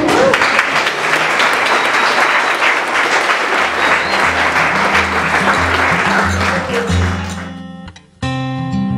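A crowd applauding, with music starting underneath about three and a half seconds in. Near the end the applause fades away and gives way abruptly to acoustic guitar music.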